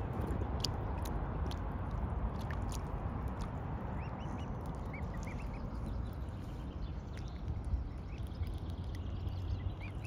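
Mute swan cygnets peeping: short, high, rising calls that start about four seconds in and repeat through the rest, over a steady low background noise. A few sharp clicks come in the first seconds.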